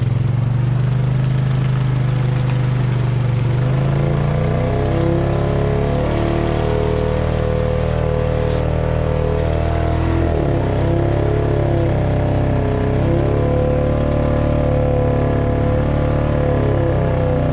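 Quad bike (ATV) engine running hard under load in soft, waterlogged bog. Its pitch steps down about four seconds in, dips briefly around ten seconds, then climbs again as the machine labours toward getting stuck.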